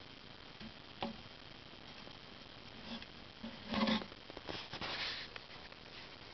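A house mouse scrabbling and rustling in its nest bedding: a faint tap about a second in, then a short burst of scratchy rustling past the middle and more light scratching after it.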